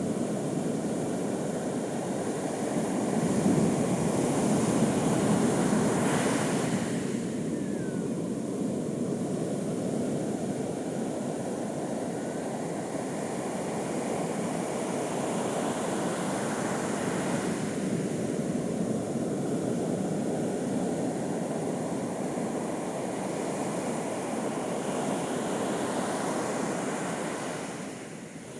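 Sea surf on a beach: a continuous rush of breaking waves, swelling louder as a bigger wave breaks a few seconds in.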